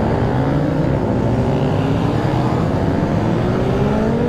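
Several motorcycle engines running together as a group rides along. Their overlapping pitches climb slowly as the bikes pick up speed in the second half.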